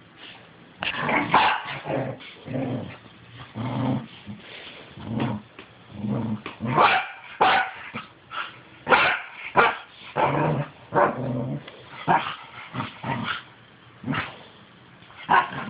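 Fluffy corgis and a schipperke play-fighting, growling and barking in short bouts about once a second, with the sharpest, loudest barks in the middle.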